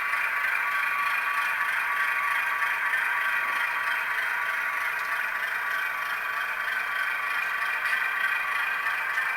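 Model Baldwin diesel locomotive running steadily, its Tsunami sound decoder playing the diesel engine sound through a tiny onboard speaker, which gives a thin, even sound with almost no bass, mixed with the clatter of wheels on the track.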